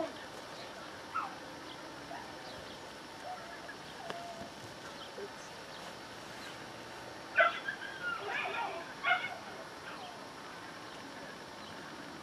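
Border collie giving a short whine about a second in, then a quick burst of sharp, high yipping barks about seven to nine seconds in.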